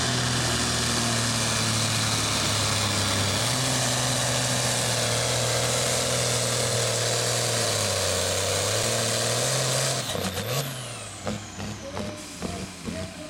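A Ford 8700 pulling tractor's engine running flat out under load as it drags the weight sled, its pitch sagging a little twice as it labours. About ten seconds in, the throttle is shut: the engine drops away, a high whine winds down, and there are a few sharp knocks.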